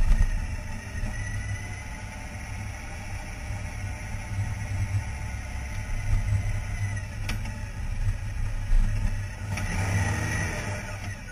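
Honda Gold Wing GL1800 on the move: its flat-six engine runs under a heavy, uneven low rumble of wind and road noise on a camera mounted low beside the front wheel. A louder stretch of engine and road noise comes about ten seconds in.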